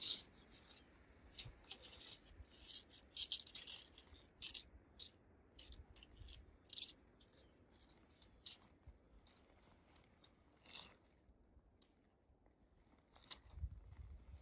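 Faint, scattered rustling and light clicks of tent nylon and a sectioned tent pole being handled as the pole is worked into the tent.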